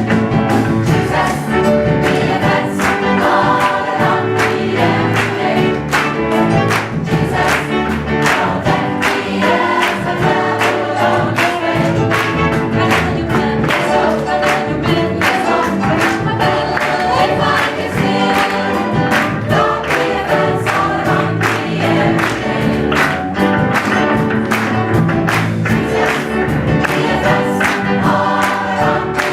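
Gospel choir singing with band accompaniment and a steady beat.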